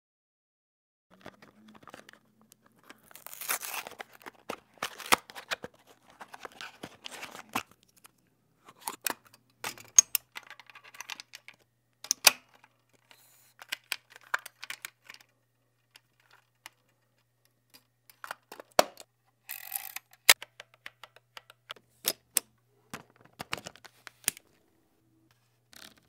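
A 35 mm film camera being loaded by hand: a series of sharp mechanical clicks and snaps, with scraping and rustling as the film is drawn from its cassette and threaded onto the take-up spool, separated by short pauses.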